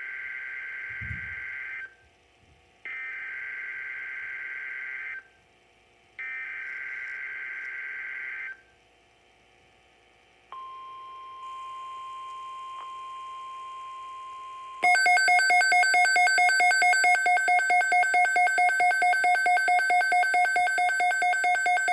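Emergency Alert System activation on a NOAA Weather Radio receiver (WR-400), signalling a Severe Thunderstorm Watch. Three bursts of SAME digital header data sound as a shrill two-tone warble, about two seconds each with short gaps, then the steady 1050 Hz weather-radio warning tone holds for about four seconds. About two-thirds in, the radio's own loud, rapidly pulsing electronic alert beep starts.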